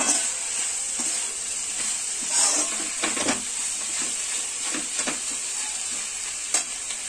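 Sliced onions and tomatoes sizzling as they are sautéed in a kadai, stirred with a slotted metal spoon. A steady frying hiss runs throughout, broken by several short scrapes of the spoon against the pan.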